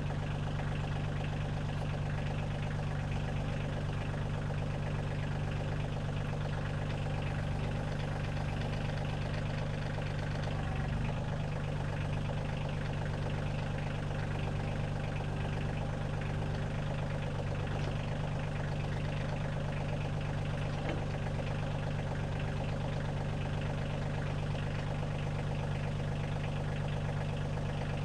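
Kioti CK2610 compact tractor's three-cylinder diesel engine idling steadily.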